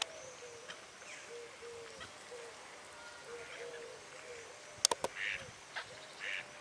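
A bird calling a steady run of short, low hooting notes, about three a second, with a few louder, higher calls after the middle. A few sharp clicks about five seconds in are the loudest sounds.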